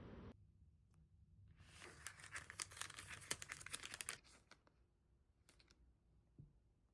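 Wrapping crinkling and tearing for about two and a half seconds, full of sharp crackles, with a brief crackle again a little later.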